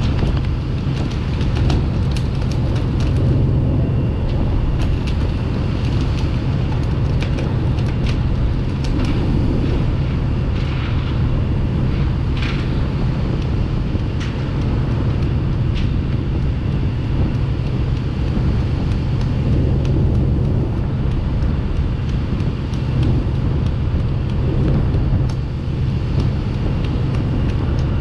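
A fishing boat's engine running steadily as a constant low drone, with wind and water rushing along the hull, and scattered light clicks and knocks from the deck.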